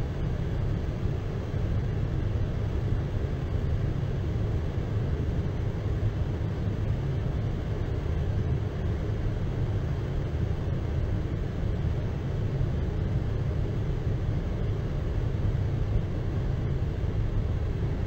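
Steady low rumble heard inside a vehicle's cabin in a blizzard: engine and road noise mixed with wind buffeting the vehicle.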